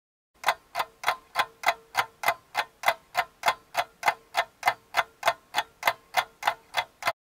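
Ticking-clock sound effect edited in over the footage: even, sharp ticks at about three a second, starting and stopping abruptly.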